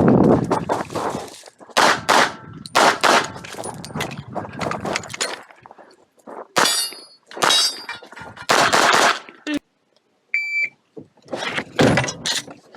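Glock 45 9mm pistol firing in quick strings of shots during a practical-shooting stage, echoing off the range. About ten and a half seconds in a single short electronic shot-timer beep sounds, and another quick string of shots follows.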